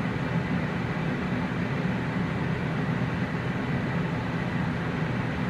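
Steady whirring hum of a running kitchen appliance fan, even throughout.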